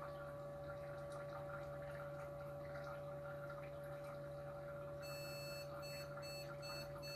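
Small electric pump running with a steady hum, circulating mineral oil through a homemade oil-cooled PC, with a gurgling flow of oil. About five seconds in, a run of about six short electronic beeps in quick succession starts: the computer's startup warning beeps.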